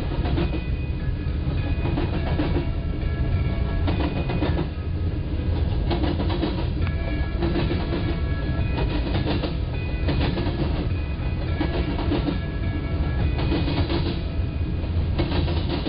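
Freight train cars rolling past a grade crossing: a steady heavy rumble, with a clack of wheels over rail joints every second or two.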